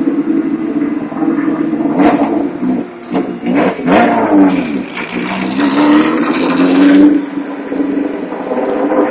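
Historic single-seater racing car's engine running at idle, then revved in short blips and pulling away, its pitch rising strongly before dropping off about seven seconds in.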